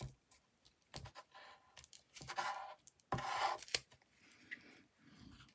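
Paper being handled and rubbed down by hand: a couple of light taps, then two short rustling, scraping passes of paper about two and three seconds in.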